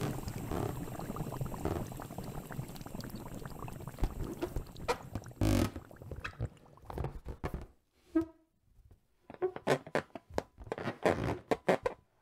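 Sound effects of fizzy soda sloshing and gurgling in a swelling stomach: a continuous churning gurgle for about the first six seconds, then a string of short, separate gurgles with quiet gaps between.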